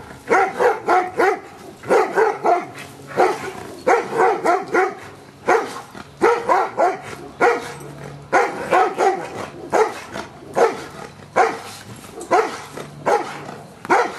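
Giant Schnauzer barking over and over in quick runs of barks, about three a second, with short pauses between runs.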